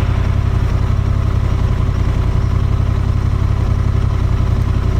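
Honda Transalp 750's parallel-twin engine running steadily at an even speed, a constant low rhythmic exhaust pulse with no revving.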